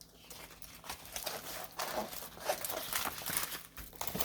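Plastic packaging from a diamond-painting kit crinkling and rustling as it is handled, unevenly, with scattered short crackles.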